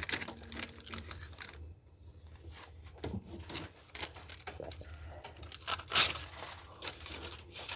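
Irregular light metallic clinks, taps and scrapes of tools and small metal parts being handled, with two sharper knocks about four and six seconds in. A low steady hum stops about a second in.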